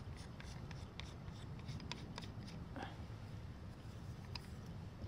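Light clicks and rubbing as a plastic smartphone adapter is handled and fitted onto a riflescope's eyepiece, over a low steady background rumble.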